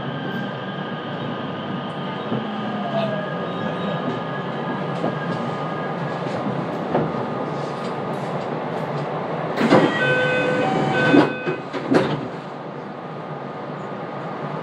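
Inside a JR West 227-series electric train slowing into a station: steady running rumble with a faint falling whine about two seconds in. About ten seconds in come a few loud knocks with short ringing tones, and the sound then goes quieter as the train comes to a halt.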